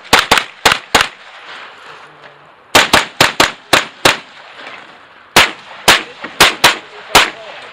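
Pistol shots fired rapidly during a practical pistol match stage: three quick strings of about five or six shots each, with short pauses between the strings.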